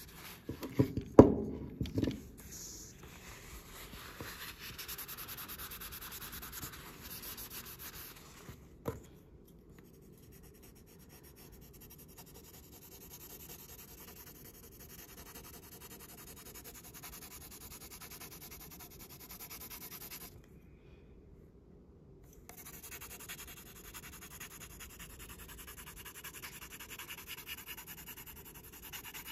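Graphite pencil rubbing across paper in steady shading strokes, with a break of about two seconds past the middle. A few sharp knocks a second or two in are the loudest sounds.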